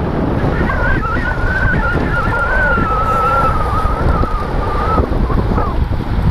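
Wind rushing over a helmet-mounted GoPro in an open skeleton housing on a road bike at race speed: a loud, steady low rumble. A thin, wavering whistle rises over it about half a second in and dies away after about five seconds.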